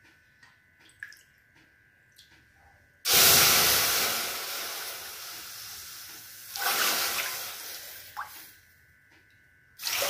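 Water poured from a glass bowl into an empty aluminium kadai, in three pours: a long splashing pour about three seconds in that fades away, a shorter one at about six and a half seconds, and a third starting near the end.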